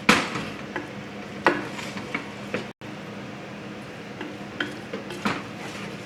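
Spaghetti being stirred and tossed in a cooking pan with a utensil: irregular scraping and about six sharp knocks of the utensil against the pan, the loudest right at the start.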